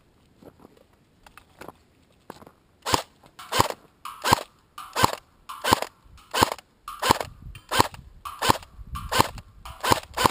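Battery-powered airsoft AK rifle fired on semi-automatic: about a dozen single shots, evenly spaced a little under a second apart. They begin about three seconds in, after a few faint clicks.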